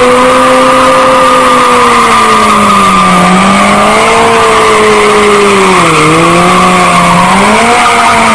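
Stunt motorcycle engine held at high revs, its pitch wavering and dipping slightly, over tyre squeal and hiss from a spinning rear tyre.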